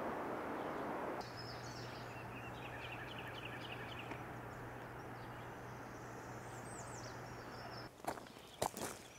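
Outdoor ambience: a steady rushing noise that cuts off abruptly about a second in, then small birds chirping over a faint steady low hum. Near the end, footsteps crunch on gravel.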